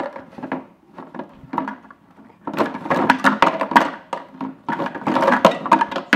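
Empty plastic bottles clattering as a husky paws and noses them round on a wooden dowel in a plywood frame, with treats rattling inside them. Scattered knocks at first, then two stretches of rapid knocking, from about two and a half seconds in and again near the end.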